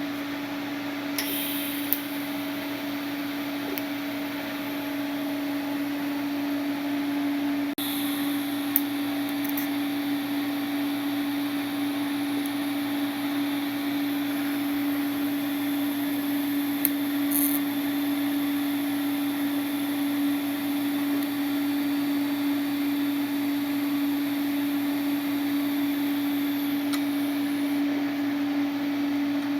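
Steady electrical hum from a TIG welding setup, one unchanging low tone over a bed of hiss. A few short clicks and brief high-pitched crackles come about 2, 8 and 17 seconds in.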